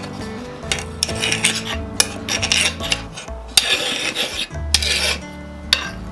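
Rasping strokes of a hand file on the steel of a kukri blade, a handful of strokes each about half a second to a second long, with a few sharp clicks, over steady background music.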